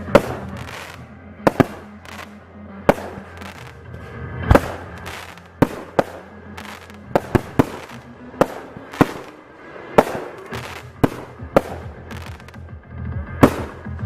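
Fireworks going off in an irregular run of about twenty sharp bangs, some in quick pairs and triplets, with electronic dance music playing steadily underneath.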